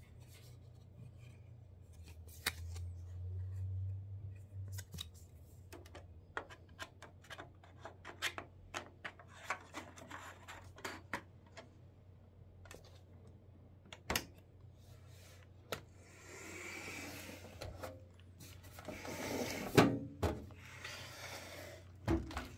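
Unboxing handling noises: scattered clicks and taps, then two stretches of rustling, the second, about 19 seconds in, the loudest.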